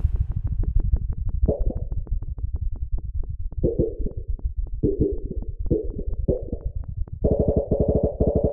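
Synthesized sonification of earthquake data: a fast, even train of ticking pulses, about eight or nine a second, over a steady low drone, with a cluster of pitched tones that comes and goes and then holds from about seven seconds in. The tempo follows the number of earthquakes per day, the pitch their average depth and the loudness their magnitude, so the fast pulse marks a dense earthquake swarm.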